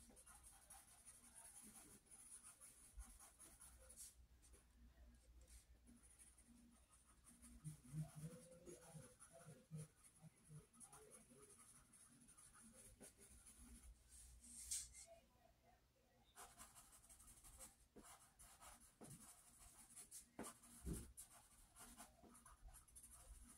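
Faint scratching of a pencil drawing on a large sketchpad's paper, in short irregular strokes.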